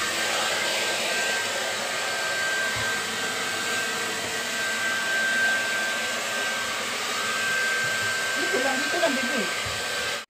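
Handheld hair dryer blowing steadily on a wet cat's fur, a rushing hiss with a thin steady whine, cutting off suddenly at the end.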